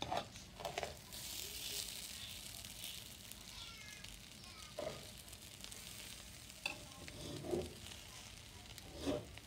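Slotted metal spatula stirring and turning cooked biryani rice in a stainless steel pot, with a soft rustling hiss from the rice. Several short scrapes and knocks of the spatula against the pot come at intervals.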